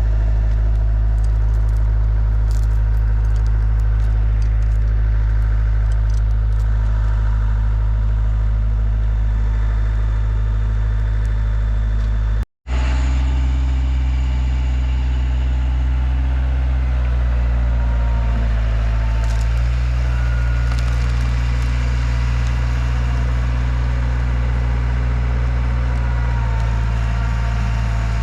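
A vehicle engine runs steadily at close range as a low, even drone. About twelve seconds in, the sound drops out for an instant and the drone comes back slightly changed in pitch, as at an edit.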